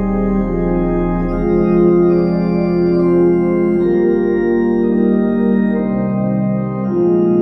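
Two-manual digital organ playing a slow piece in sustained chords, the harmony changing every second or two. A deep pedal bass note held at the start stops about a second and a half in.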